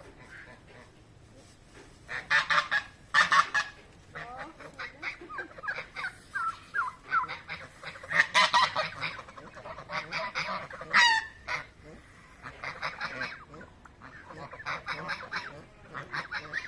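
A flock of domestic geese honking, calls coming in loud bursts and overlapping, starting about two seconds in and going on in repeated clusters.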